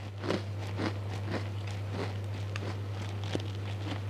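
Close-miked chewing of a krupuk cracker: irregular crisp crunches, a couple a second, over a steady low hum.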